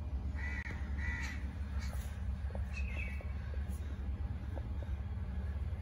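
A crow cawing three times, harsh calls spaced over the first three seconds, over a steady low rumble.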